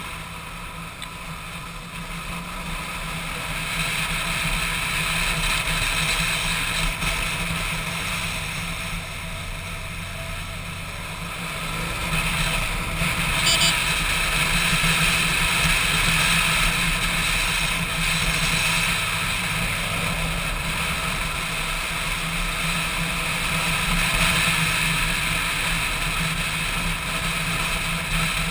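Motorcycle engine running while riding, with road and wind noise, recorded by a camera mounted on the bike. It gets louder a few seconds in and again about twelve seconds in.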